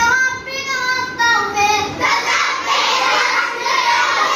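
Children reciting the Quran in a sing-song chant. Clear held notes come first, then from about halfway a busier mix of many voices overlapping.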